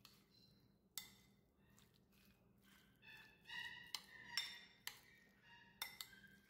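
Metal utensil clinking against a ceramic bowl as egg salad is stirred, with about six sharp clinks, most of them in the second half.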